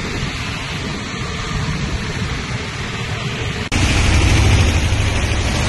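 Steady hiss of heavy rain. A little under four seconds in it cuts abruptly to a louder stretch of rain with a deeper rumble underneath.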